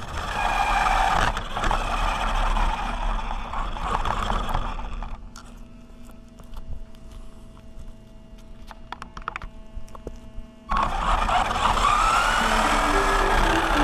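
Brushed electric motor and gears of a Remo Hobby SMAX RC truck whining as it drives over asphalt, with tyre and grit noise; the whine rises and falls with the throttle. About five seconds in it drops to a faint hum with a few small clicks, and about eleven seconds in the truck pulls away again.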